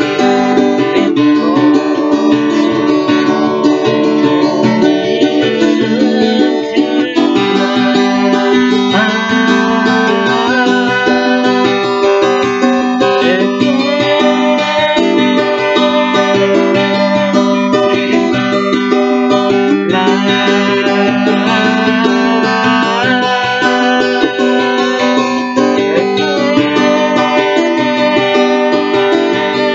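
Classical guitar strummed steadily, with a woman singing over it.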